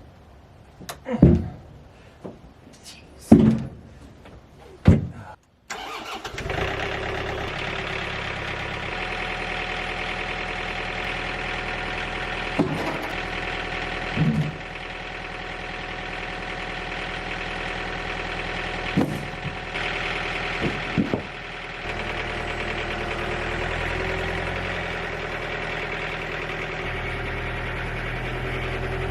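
A few sharp wooden knocks. Then, from about six seconds in, the engine of a Wood-Mizer LT35 portable sawmill runs steadily, with an occasional knock over it.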